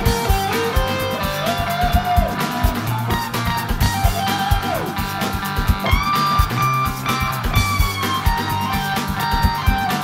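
Les Paul-style humbucker electric guitar through a Fulltone Full-Drive 2 overdrive pedal, playing a driven lead line with string bends and long held notes, layered over a second guitar part. Underneath are a bass line and a steady drum beat.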